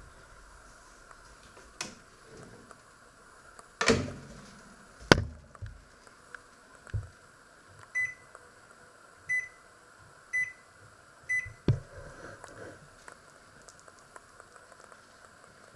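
Panasonic combination microwave oven: its door shuts with a bang about four seconds in, followed a second later by a sharp latch click. Then four short beeps from the control panel as buttons are pressed to set the oven mode and temperature, and a further click.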